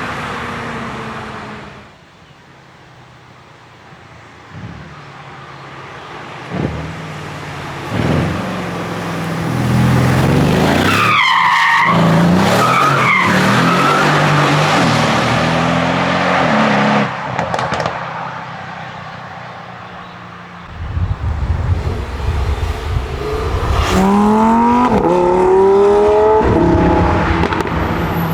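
High-performance car engines revving and accelerating hard, the pitch climbing in several rising sweeps as the revs build. A few sharp cracks come about two thirds of the way through, and high bending squeals come about halfway in.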